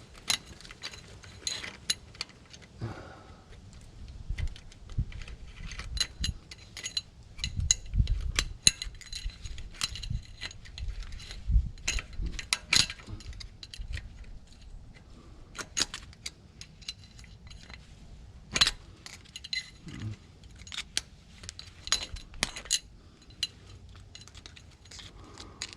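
Irregular metallic clicks and clinks of a hand tool picking at the steel parts of a Ford Bronco front wheel hub, working a half moon retaining clip loose, with a few dull knocks.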